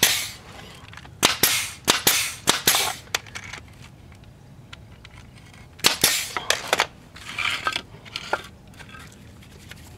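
Brad nailer driving 1¼-inch brad nails into the corners of a wooden picture frame: a string of sharp shots, about seven in the first three seconds and a few more around six seconds in.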